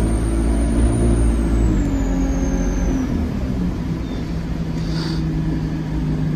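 Alexander Dennis Enviro200 Dart bus heard from inside the saloon: a low diesel engine rumble and a high whine, both falling in pitch over the first three seconds as the revs drop, then settling into a steadier low hum.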